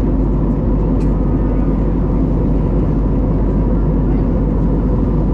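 Steady cabin noise of an Airbus A321neo climbing: its Pratt & Whitney PW1100G geared turbofans at climb thrust, heard from inside the cabin as an even roar with a faint steady high tone.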